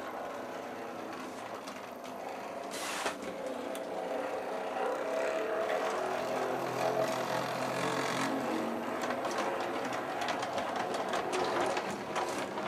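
O scale model train running along the track: a steady electric motor whir with wheels ticking over the rails. There is a brief hiss about three seconds in.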